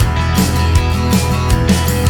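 Rock-style background music with guitar and a steady drum beat.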